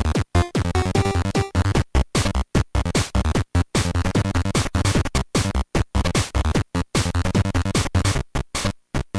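Electronic music with a choppy, stuttering beat that cuts in and out many times a second over heavy bass.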